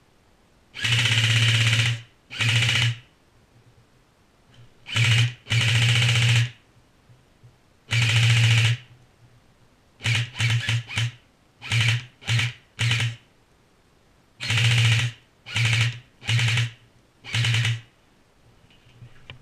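Airsoft electric rifle firing about fifteen short full-auto bursts in irregular spurts, each from a fraction of a second to about a second long.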